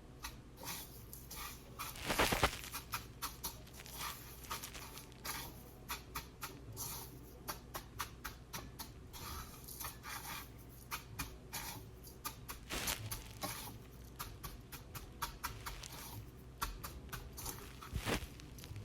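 Chicken tenders being pressed and turned in dry panko breadcrumbs: a crisp, crackly rustling of quick, irregular clicks, loudest about two seconds in and again near the end.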